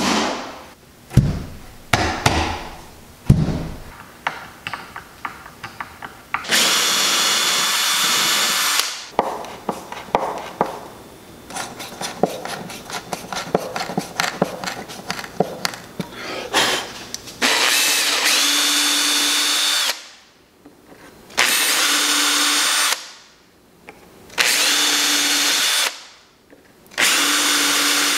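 Cordless drill running in five separate bursts of two to three seconds, drilling holes into a bedliner-coated plywood box. Between the bursts come small clicks and taps from hand-driving screws.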